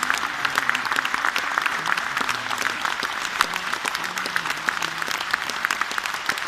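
Concert audience applauding: dense, steady clapping from a large crowd, with faint voices underneath.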